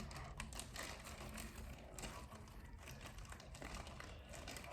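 Glitter slime being kneaded and squished by hand: faint, irregular small clicks and crackles.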